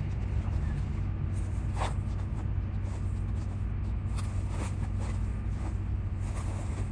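Steady low outdoor rumble, with a few light rustles and knocks as plastic grocery bags are loaded from a shopping cart into a pickup truck's cab.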